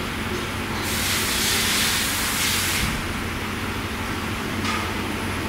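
Metalworking machine tool running with a steady low hum. About a second in, a loud hiss comes in and lasts about two seconds, and a brief second hiss comes near the end.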